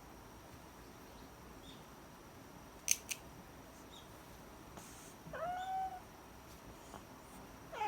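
A domestic cat meows once, about halfway through, while its claws are being trimmed, and another meow begins at the very end. About three seconds in, two quick sharp clicks, the snip of claw clippers.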